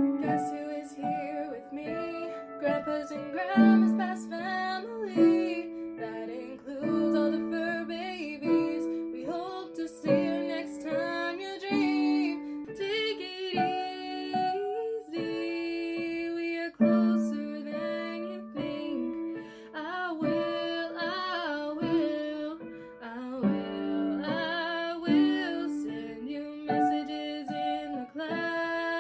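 Woman singing an original song over piano accompaniment, her voice gliding between sustained notes.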